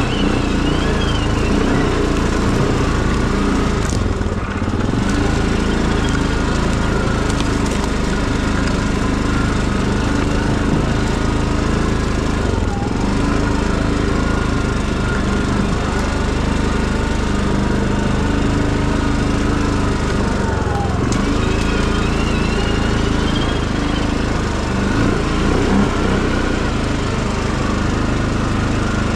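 Tractor engine running steadily while driving along.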